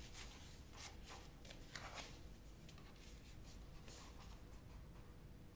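Faint, scattered rustling and swishing as hands slide over and shift a large diamond-painting canvas and its protective paper covering.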